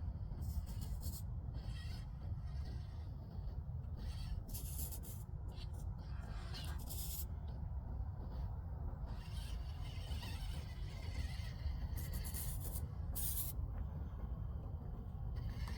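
Small RC rock crawler's tires scraping and scrabbling over rock in short, irregular spells, over a steady low rumble.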